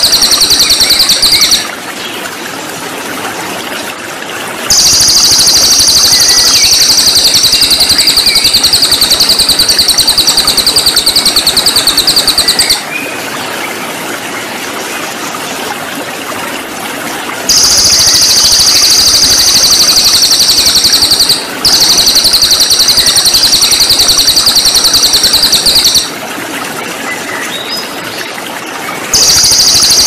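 Cililin songbird singing a rapid, high-pitched trill in long bouts of several seconds, with pauses of a few seconds between them, over the steady rush of flowing water.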